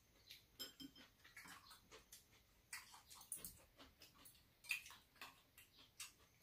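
Two people eating soup: faint, irregular mouth smacks and chewing with light clicks of metal chopsticks and spoons against the bowls, the sharpest click a little before five seconds in.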